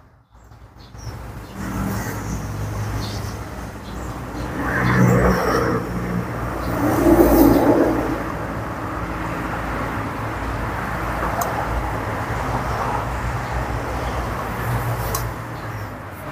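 Outdoor background noise dominated by a vehicle engine running nearby, a steady low hum that swells twice, about five and seven seconds in.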